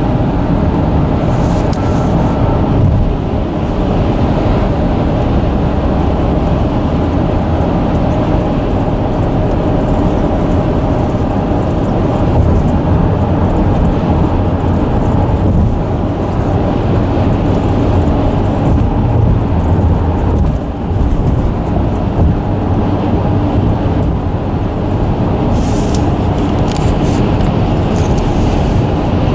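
Road bridge vibrating under passing traffic: a loud, steady low rumble with a faint hum of held tones over it.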